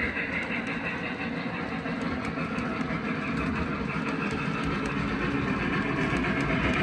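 Model train freight cars rolling along the track: a steady rumble of metal wheels on rail, with faint clicks.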